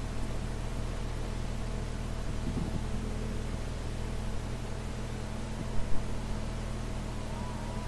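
Steady hiss and low mains hum from an old recording's background noise, with two brief faint knocks about six seconds in.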